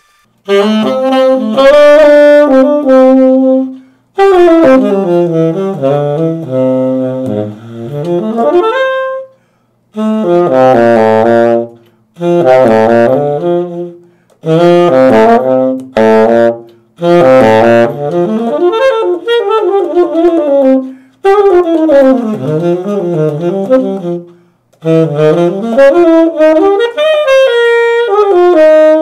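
Tenor saxophone fitted with a new Borb Oliver New York tenor mouthpiece, played solo in about eight short melodic phrases with brief breaths between them: a first play-test of the mouthpiece's tone.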